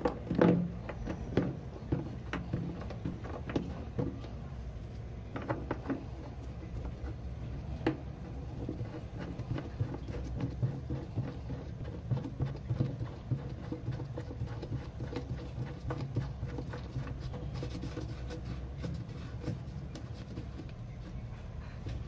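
Plastic flush parts inside a toilet cistern being handled and fitted: scattered clicks and knocks, loudest in a short cluster about a second in, over a low steady hum.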